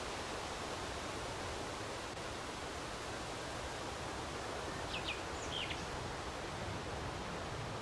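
Steady wind rustling through leafy trees, with a bird giving two or three quick high chirps about five seconds in.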